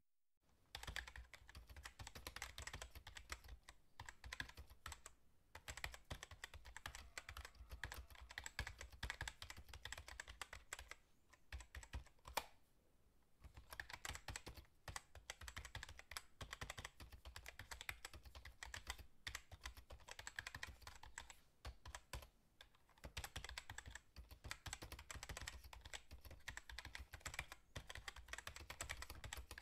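Faint typing on a computer keyboard: fast runs of key clicks with short pauses between them.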